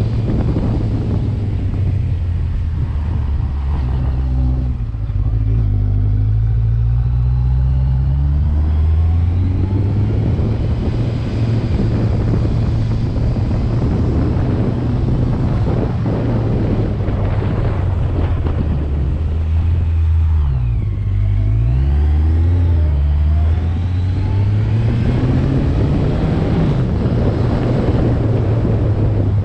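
Vehicle engine running under way, its pitch rising and falling with throttle and gear changes, over a steady rushing noise. About two-thirds of the way in the pitch drops sharply and then climbs again.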